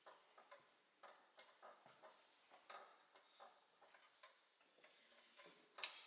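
Faint, scattered clicks and light knocks, with one sharper, louder knock near the end.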